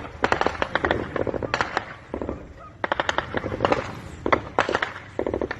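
Bursts of automatic gunfire: about seven rapid strings of shots, one after another.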